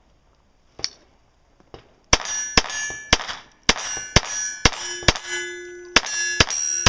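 A pistol fired in a rapid string of about nine shots, roughly half a second apart, starting about two seconds in. Each shot is followed by the clang of a steel plate target, which rings on between shots.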